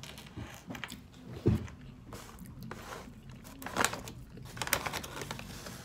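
A person chewing french fries close to the microphone, with mouth clicks and a few sharp crackles. There is a dull thump about one and a half seconds in.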